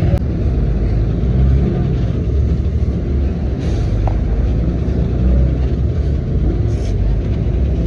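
Steady low rumble of a moving road vehicle, heard from inside the cabin.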